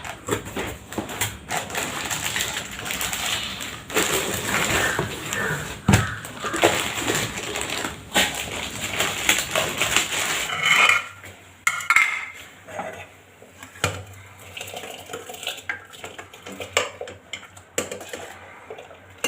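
Steel pots, dishes and utensils clattering and clinking in a kitchen, busy at first and then quieter and sparser for the second half.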